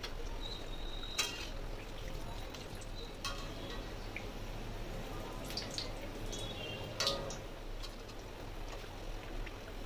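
Battered banana-flower chops deep-frying in hot oil in a metal kadai, sizzling steadily. A metal spatula clinks against the pan a few times: about a second in, around three seconds in and at about seven seconds.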